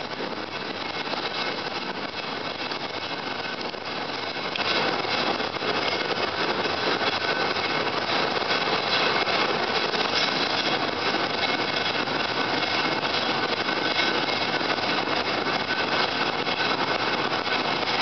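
Steady ride noise inside a moving transit vehicle, a running rumble and rattle that grows louder about four and a half seconds in and stays up.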